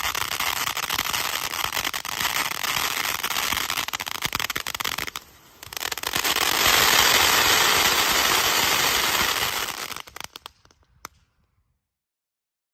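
Static Shock crackling fountain firework spraying a dense, loud crackle. It breaks off for about half a second, comes back louder and denser for its large finale, then thins to a few last pops and stops.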